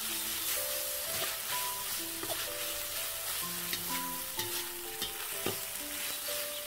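Pad kra pao stir-frying in a hot wok: a steady sizzle as a metal spatula stirs and scrapes the food around, with several sharp clicks of metal against the wok, the loudest a little before the end. Soft background music with a melody plays underneath.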